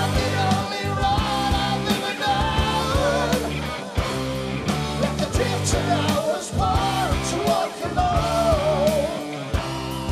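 Live rock band playing: electric guitar, bass guitar and drums with regular beats, and a male voice singing the melody.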